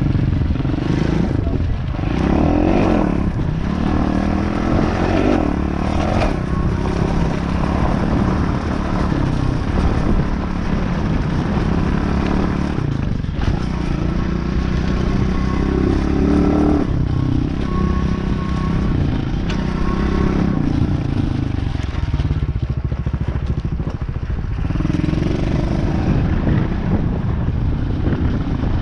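Off-road vehicle's engine running while being ridden, its pitch rising and falling with the throttle. There are brief drops in revs about halfway through and again near the end.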